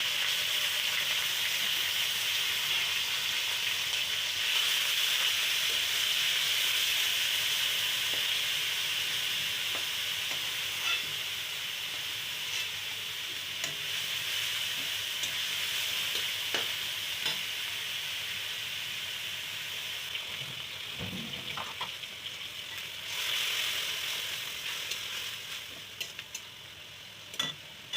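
Food frying in hot oil in a pan: a steady sizzle that slowly dies down and swells again briefly near the end, with occasional sharp clicks of a spoon or spatula stirring against the pan.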